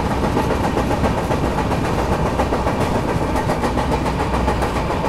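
Mandovi Express passenger train running steadily, a constant rumble of wheels on rails heard from inside the coach.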